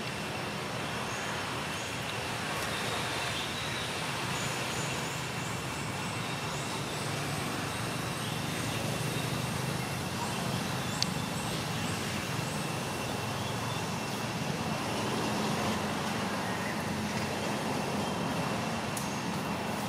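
Steady outdoor background noise: a low rumble with a thin, steady high tone over it and short high chirps repeating now and then, and one sharp click about eleven seconds in.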